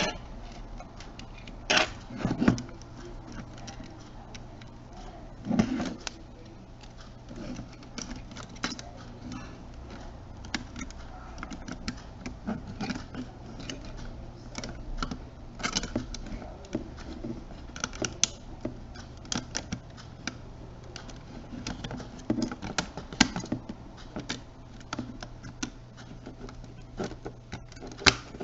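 Small clicks, taps and light rattles of camcorder housing pieces being handled and fitted together, irregular throughout, with a few louder knocks in the first few seconds, over a steady low hum.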